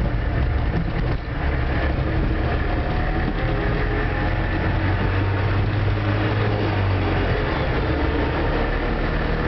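Trabant on the move, its engine and road noise heard from inside the cabin as a steady low drone, with a brief dip in loudness about a second in.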